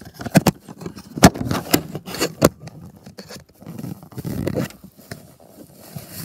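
Handling noise from a handheld phone moved against clothing: a quick series of sharp knocks and clicks in the first couple of seconds, then a rough scraping rustle of fabric about four seconds in.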